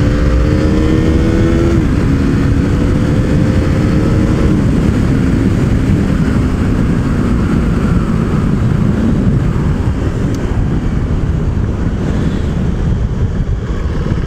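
KTM Duke 390's single-cylinder engine accelerating hard, its note climbing, dropping at an upshift about two seconds in, climbing again and dropping at a second upshift near five seconds, then settling lower and fading as the bike rolls on. Heavy wind rush on the helmet microphone throughout.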